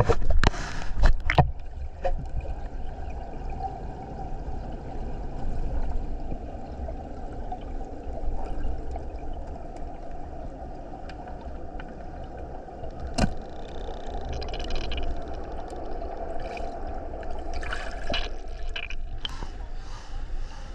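Steady rush of a waterfall's falling water, with a few sharp knocks in the first second and a half and another about thirteen seconds in.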